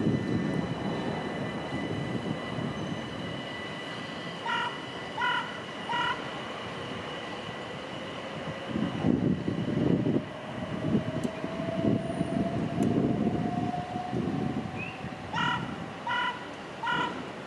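Electrostar electric multiple unit at a station: three short warning beeps, then the train moves off with a slowly rising motor whine over wheel rumble, and three more beeps near the end.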